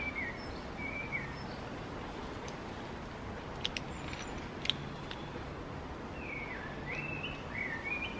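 Outdoor garden ambience: a songbird calls in short warbling phrases, a couple near the start and a string of them near the end, over a steady background hiss. A few light clicks come in the middle.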